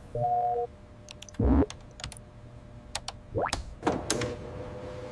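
Electronic sound-design effects: a short two-tone beep, scattered keyboard-like clicks, a deep thump with an upward sweep about a second and a half in, two quick swooshes, then a steady electronic hum from about four seconds in.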